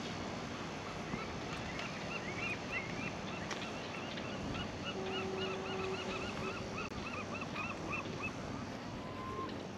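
A gull calling a long series of repeated yelping notes, close together, that runs for about seven seconds, over a steady background hiss.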